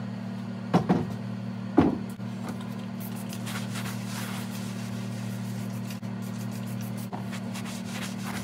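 A large wooden pasta board knocks twice on a stainless-steel counter as it is set down, over a steady low hum. Then come a few spray-bottle spritzes and a cloth rubbing over the wood as the board is wiped down.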